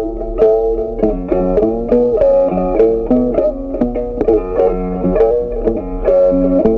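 Background music: a plucked-string melody, guitar-like, with quick notes over a steady low bass.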